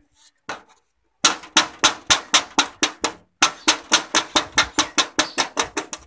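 Rapid hammer strikes on the sheet metal of a tin oil can, about four a second, with a short pause about halfway through.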